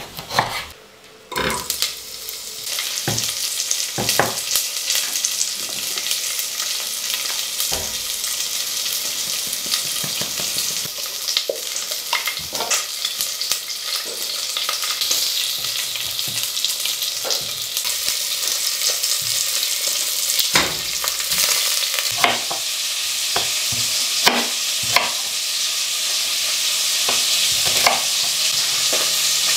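Food sizzling steadily in a hot frying pan, starting about a second and a half in, with scattered sharp knocks of a knife on a wooden cutting board.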